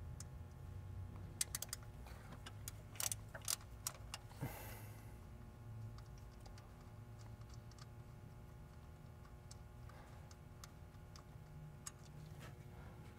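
Hand ratchet clicking faintly in short, irregular runs as it backs out a bolt, with small metallic clinks of the socket and tool.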